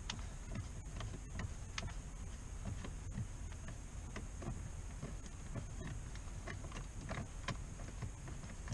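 Irregular light clicks and taps of small metal Allen wrenches being tried against a screw in the dashboard trim, searching for one that fits, over a steady low rumble.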